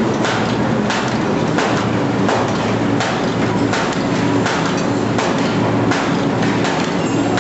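Automatic paper bag making machine running: a constant mechanical clatter with a regular knock about every two-thirds of a second, one stroke per bag turned out.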